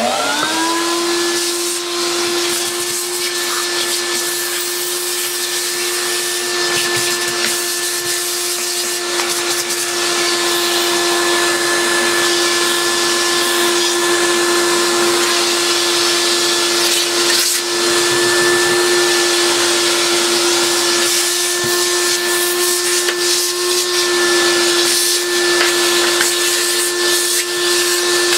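Vacuum cleaner motor winding up to speed, then running steadily with a whine over the rush of air through its hose and narrow crevice tool as it sucks up dust.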